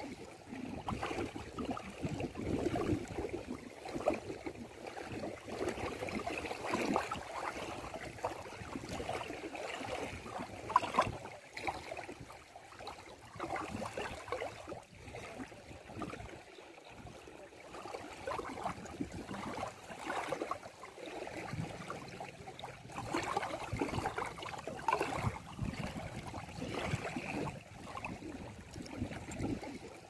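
Shallow water lapping and gurgling at a sandy shoreline, small ripples washing in and out in uneven swells with a louder splash about eleven seconds in, then a quieter stretch.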